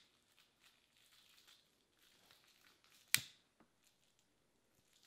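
A single sharp click from a long-reach utility lighter about three seconds in, with faint rustling around it.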